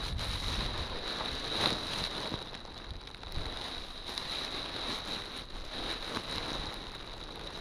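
Fabric of a deflated 12 m Gin Spirit foil kite rustling as it is folded and rolled up by hand, with wind noise on the microphone.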